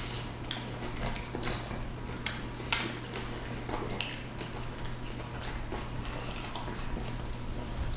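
Close-miked chewing: irregular wet clicks and smacks of mouths eating fried chicken BLT sandwiches, a few a second, over a low steady hum.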